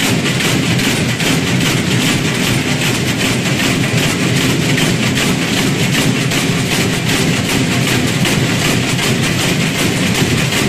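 Dozens of large wooden box ratchets worked together, making a loud, continuous, dense wooden rattling that holds steady throughout.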